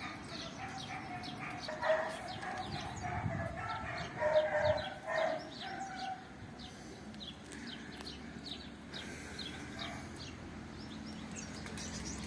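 Birds calling in the open: quick, high chirps repeat throughout, and a louder, lower call sounds between about two and six seconds in.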